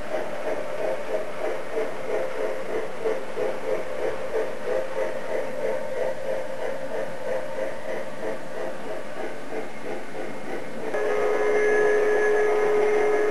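A model freight train running on a layout, with a rhythmic pulsing of about two to three beats a second. About eleven seconds in, a model locomotive sounds a sustained multi-tone whistle that holds to the end.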